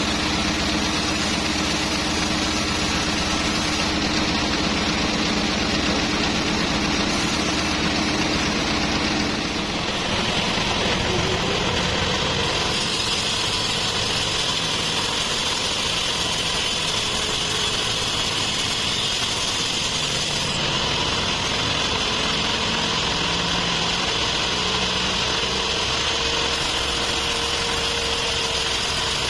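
Sawmill band saw running steadily; about ten seconds in, the blade enters a large trembesi log and the sound changes to the higher, hissing tone of the cut as it saws through the wood.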